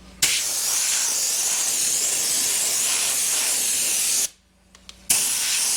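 Compressed-air blow gun blasting air onto the wet collector cells of an electronic air cleaner to dry them: a loud steady hiss that cuts off about four seconds in and starts again a second later.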